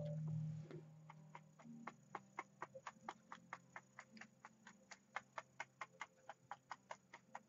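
Paintbrush tapping paint onto the painting surface to stipple in grasses: a quick, even run of light taps, about four a second. A brief low hum sounds right at the start.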